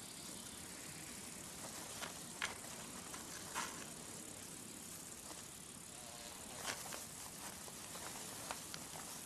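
Faint, steady outdoor hiss with a few light clicks and ticks scattered through it.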